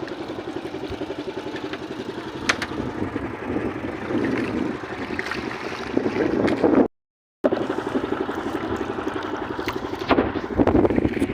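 Small fishing boat's engine running under way, a steady fast pulsing, with wind buffeting the microphone. The sound drops out completely for about half a second around seven seconds in, at an edit cut.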